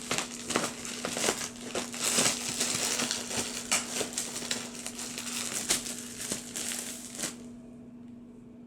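Rustling and crinkling as polyfill stuffing is handled and pushed into a reborn doll's cloth body, with many sharp crackles, stopping about seven seconds in.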